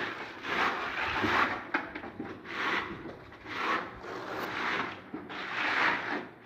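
Hand sanding of a wall: sandpaper rubbed over the surface in repeated rasping strokes, roughly one a second, smoothing it before painting.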